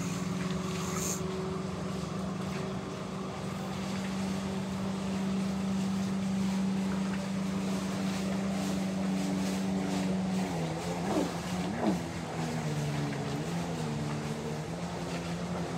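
Motorboat engine running at a steady pitch, which drops a little about ten and a half seconds in. Two short swooping sounds come about eleven and twelve seconds in.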